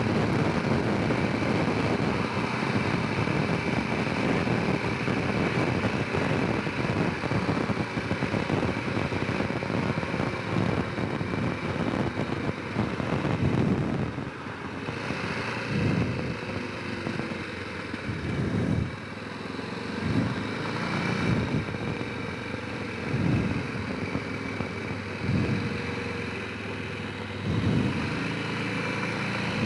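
Honda Rincon 650 ATV's single-cylinder engine running as the quad is ridden. It runs evenly for about the first half, then drops back and picks up in short surges every couple of seconds.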